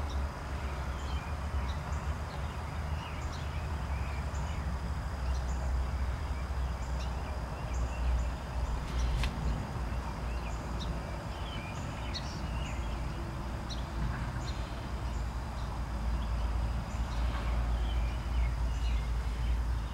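Outdoor ambience: a steady low rumble with small birds chirping now and then.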